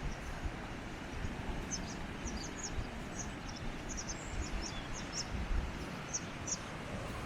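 Sea washing against a rocky shore with a steady rush, while a small bird gives a string of short, high chirps from about a second and a half in.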